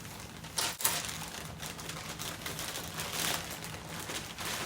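Plastic packaging crinkling and rustling as a haul item is handled and unwrapped, with a sharper crackle under a second in, over a faint steady hum.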